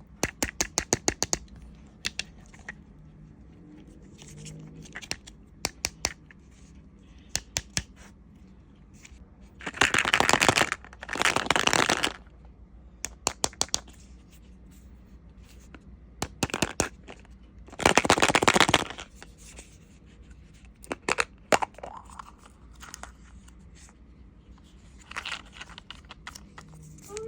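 Toy packaging being handled and opened: scattered sharp clicks and taps of plastic, with two longer stretches of crinkling, tearing wrapper, about ten and eighteen seconds in.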